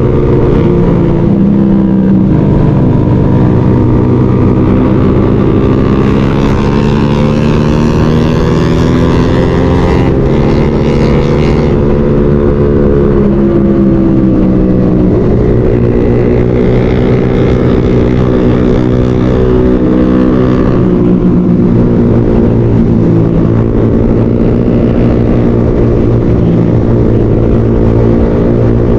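Motorcycle engine running under way, its pitch rising and falling gently as the throttle and speed change, with steady wind and road noise.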